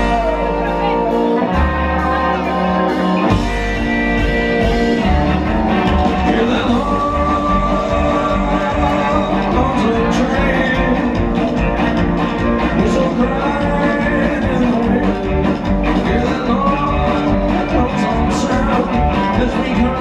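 A rockabilly band playing live and loud: electric hollowbody guitar over upright bass and drums.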